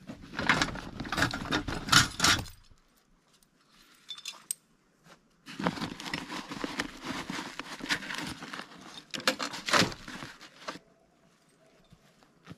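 Metallic jangling, like steel traps and their chains, mixed with rustling and crackling. It comes in two stretches: about two and a half seconds at the start, then about five seconds from near the middle.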